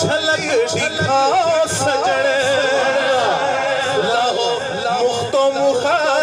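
A man singing a Punjabi naat, holding long ornamented notes whose pitch wavers and glides.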